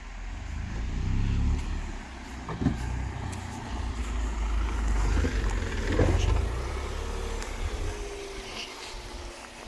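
Tata Tiago hatchback driving slowly over a rutted, rocky dirt track, its engine and tyres making a low rumble, with two sharp knocks from stones about two and a half and six seconds in.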